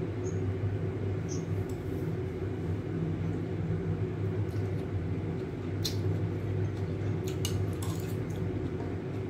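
Steady low electrical hum, with a few light clinks of metal chopsticks and a spoon against a ceramic soup bowl.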